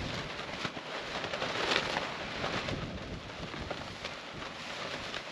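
Dense crackling and rustling made of many small clicks, loudest about two seconds in.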